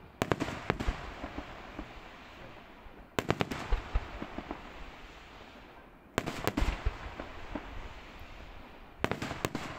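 Fireworks display: four volleys of sharp bangs about three seconds apart, each a quick cluster of several reports trailing off into a fading crackle and rumble.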